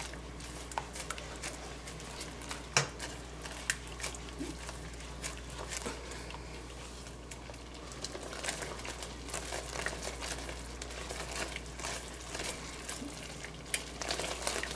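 Wire whisk stirring gravy in a pan: irregular light clicks and scrapes of the whisk against the pan, over a faint steady low hum.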